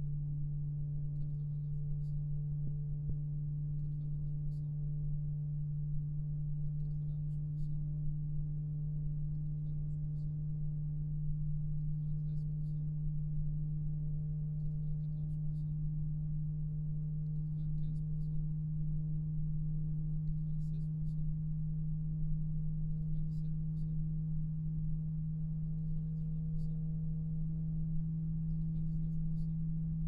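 Arctic P120 PWM 120 mm PC fan running at high speed, close to the microphone: a steady low hum over a soft rush of air.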